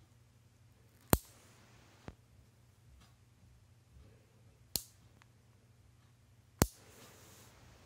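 Hand-held dog nail clipper cutting through a dog's toenails: three sharp snaps, one per clip, with a fainter click after the first.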